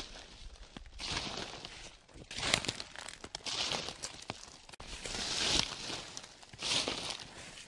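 Footsteps crunching and rustling through a thick layer of dry fallen leaves, one step roughly every second.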